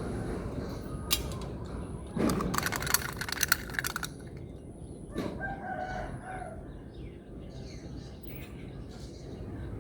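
Small plastic beads clattering in a quick run of clicks for about two seconds. About five seconds in, a rooster crows once in the background over a steady low outdoor hum.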